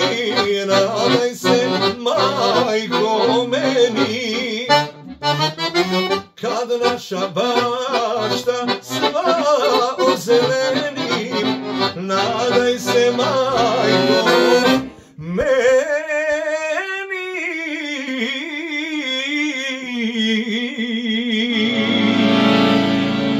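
Chromatic button accordion playing a fast Balkan folk passage over pumping bass chords. About fifteen seconds in it breaks off, and a long wavering line with vibrato follows, which sounds like a man holding a sung note. Low sustained accordion chords come in near the end.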